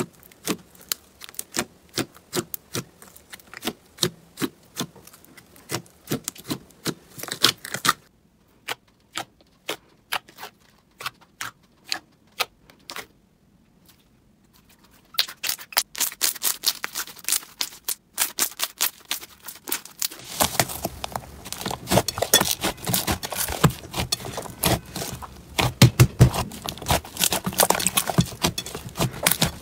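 Slime being pressed and squeezed by hand, giving rapid crisp clicks and crackles of the crunchy kind. The sound comes in several takes: quieter and sparser for a while in the middle, then louder and denser crackling in the last third.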